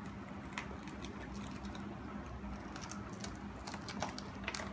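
A durian's thick spiky husk being pried apart by hand along its seams: scattered faint cracks and crackles as the husk splits, more of them toward the end. A steady low hum runs underneath.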